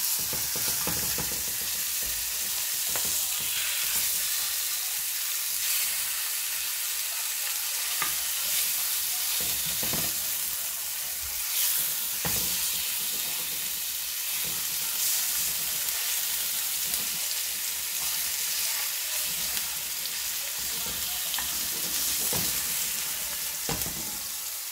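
Marinated beef slices sizzling in hot oil in a nonstick frying pan, a steady hiss throughout, with brief scrapes and taps of a wooden spatula against the pan every second or two.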